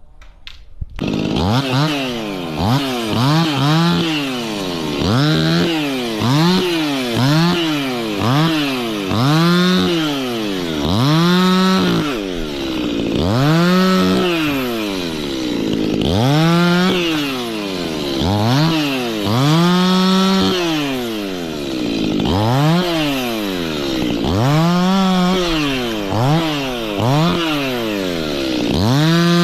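Stihl chainsaw coming in about a second in, then revving up and down over and over, its pitch rising to full throttle and falling back every second or two, sometimes held at the top for a moment.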